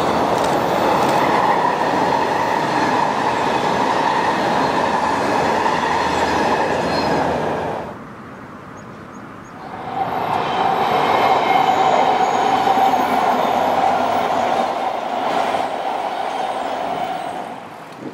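MARTA electric rapid-transit train running on the rails: steady wheel-and-track noise with a high whine over it. It cuts off abruptly about eight seconds in, and after a short lull a second train passage with a slightly lower steady whine comes in, fading near the end.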